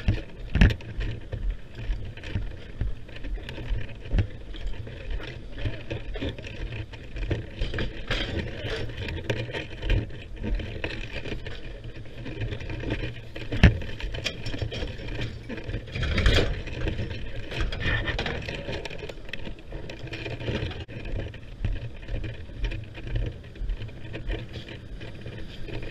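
Aluminum ground ladder rattling and clanking as it is carried, with a steady wind rumble on the microphone. There are a couple of louder knocks about halfway through.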